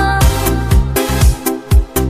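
Upbeat dance-pop song with a steady kick-drum beat; near the end the track drops out briefly twice before the beat comes back in.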